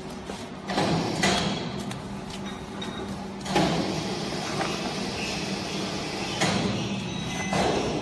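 Cardboard boxes being shoved and dropped by hand into the loading chamber of a vertical baler: about five sudden scraping knocks and rustles over a steady low hum.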